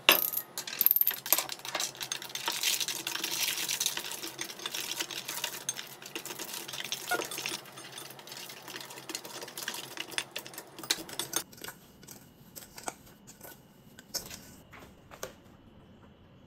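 Dry cement and sand being mixed by hand in stainless steel bowls: a gritty scraping and rustling, with clinks of small metal dishes against the bowls at the start as the powders are tipped in. After about eleven seconds it thins to scattered light taps.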